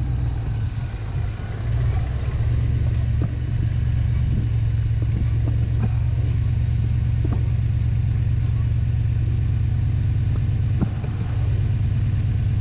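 Rock-crawler buggy engine running steadily at low revs, with a few sharp knocks spread through it.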